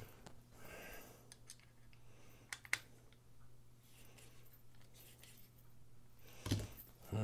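Faint metallic clicks and light handling of a folding knife as a screwdriver bit is seated in its pivot screw and turned to adjust the overtightened pivot. A few sharp ticks come in the first few seconds, and a louder short knock comes twice near the end.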